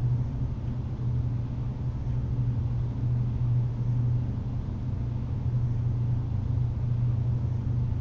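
A steady deep drone with a rumble beneath it, holding level without change: the kind of low underscore laid under a tense horror scene.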